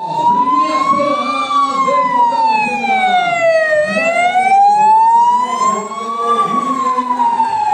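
Police car siren sounding a slow wail, rising and falling in pitch, with one full up-and-down cycle taking about five seconds, as the car drives past.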